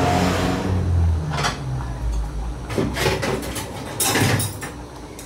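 Cooking utensils knocking and scraping against a cooking pot, in a few short bursts of clatter.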